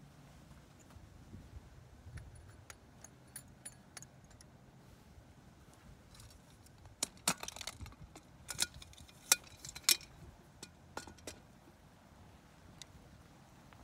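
Sharp metallic clicks and clinks as the metal head cover is unfastened and lifted off an artillery aiming circle on its tripod. The clicks are faint and scattered at first, then come as a loud cluster in the middle.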